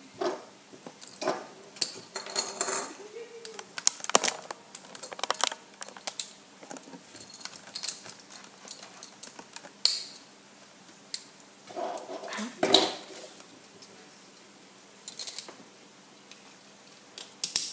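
Dynamite Belial Beyblade parts clicking and clattering in the hands in irregular small clicks as the top is taken apart and its metal disc and ring are rearranged to switch it from low mode to high mode.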